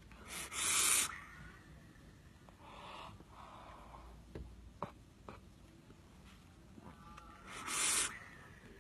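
Two short, forceful breaths from a person, one about half a second in and one near the end, with a few faint clicks between them.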